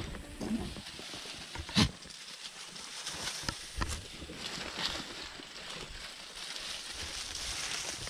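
Goats browsing on freshly cut oak branches: leaves rustling and twigs clicking and cracking as they pull and chew, with one loud sharp crack about two seconds in.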